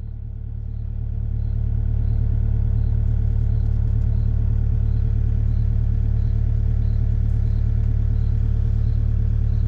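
Kubota U55 mini excavator's diesel engine idling steadily. It builds up over the first couple of seconds, then holds an even low hum with a faint tick about twice a second.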